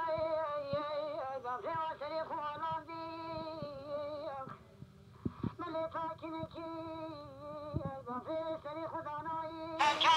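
A voice singing a melody in long held, wavering notes, breaking off briefly about halfway, with a few soft knocks.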